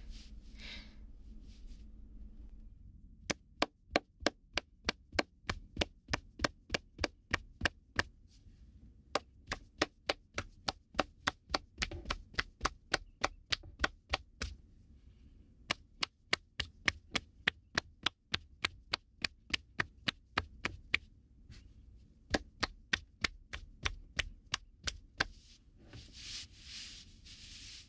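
Tapping massage: hands chopping or tapping rhythmically, sharp taps about three a second in runs of several seconds with short pauses between them.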